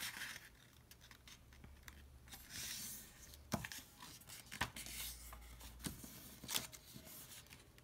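Faint rustling and creasing of a 6x6 inch square of origami paper being folded diagonally in half and pressed flat by hand, with a few sharp crackles as the creases are made.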